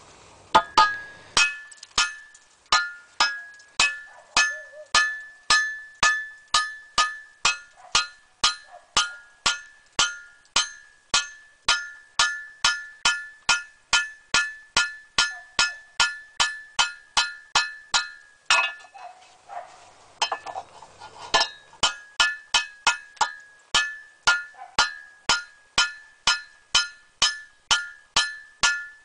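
Forging hammer striking a red-hot iron knife blank on an anvil, about two blows a second, each ringing with a clear high tone from the anvil. The hammering stops for about three seconds a little past halfway, then resumes at the same pace.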